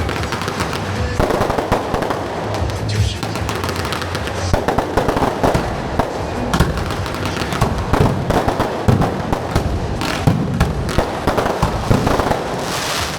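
Fireworks going off in a dense, continuous run of rapid crackling pops, with louder bangs scattered through, over music.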